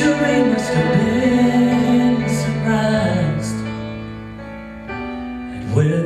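A male vocalist sings a slow Christmas ballad into a handheld microphone over instrumental backing music, pausing between phrases while the accompaniment carries on.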